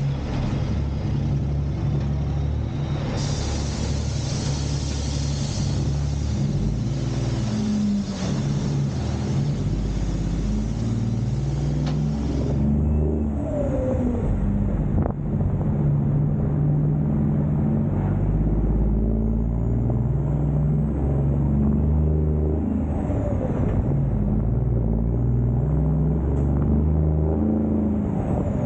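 Peterbilt semi truck's diesel engine running under way, its low note rising and dropping in steps as engine speed changes. A hiss rides over it for several seconds near the start.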